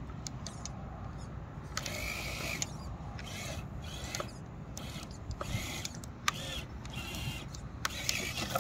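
Traxxas TRX-4 Defender RC crawler's electric motor and geared drivetrain whining in about six short throttle bursts as it crawls over rough clay rubble, with a few sharp clicks in between.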